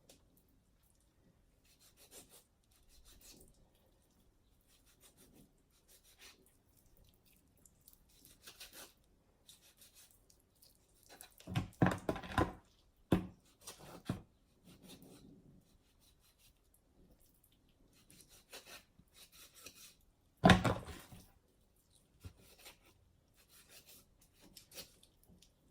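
Kitchen food-preparation handling: quiet rubbing and shuffling of raw chicken pieces and utensils, a flurry of knocks and clatter around twelve seconds in, and one sharp knock around twenty seconds in.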